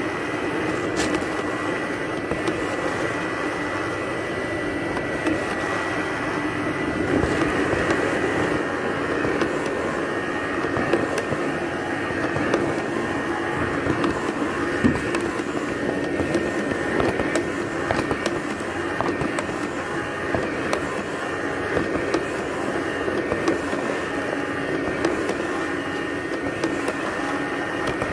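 Robot vacuum cleaner running as it travels: a steady motor hum with a thin high whine over it, and scattered light clicks.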